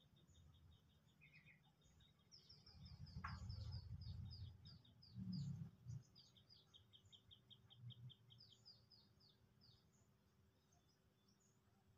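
Small birds chirping faintly in fast runs of short, high repeated notes. A low rumble swells in the middle and briefly becomes the loudest sound.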